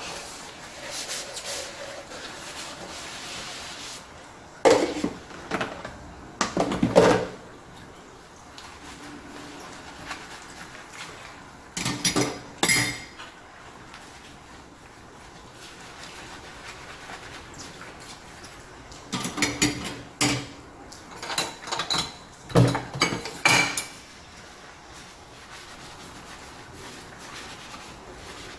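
Dishes and cutlery being handled while washing up by hand: clinks and knocks, some ringing briefly, come in three clusters several seconds apart, with a soft steady hiss in between.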